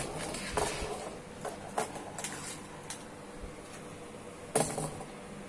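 Small die-cast metal toy trucks clicking and knocking as they are handled and set down on a wooden table: a few scattered taps, the loudest a quick cluster about four and a half seconds in.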